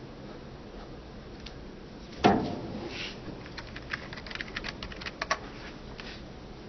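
A single loud thump about two seconds in, then a quick run of light clicks and taps over the next couple of seconds.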